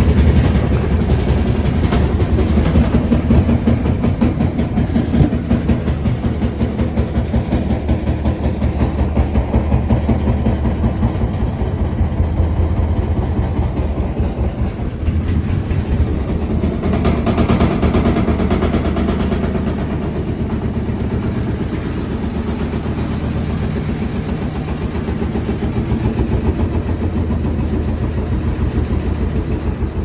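Top-loading washing machine making a loud, steady ruckus, a low rumble with rapid knocking, while running a very small load of one pair of sweats, a vest and a few small items.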